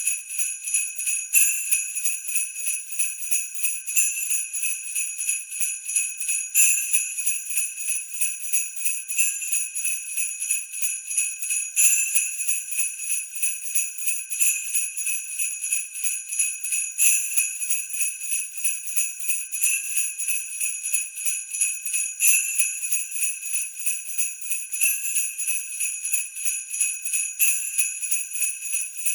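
Sleigh bells jingling in a steady, even shaking rhythm, with a stronger accent about every two and a half seconds.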